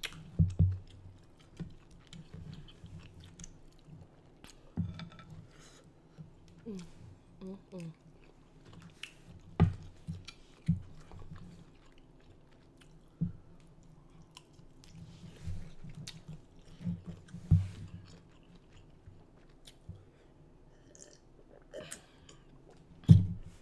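Close-miked chewing of shrimp dipped in seafood sauce, with wet smacks and mouth clicks at irregular moments. Near the end comes one loud gulp as she drinks from a jar.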